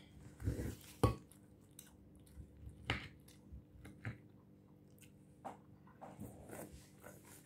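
Mouth sounds of chewing crisp lettuce salad and chicken, with a few short sharp clicks of a metal fork against the plate.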